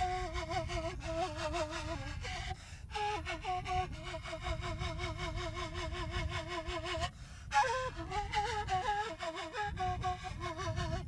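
A flute playing a wavering, ornamented folk melody, pausing twice, with a low rumble underneath.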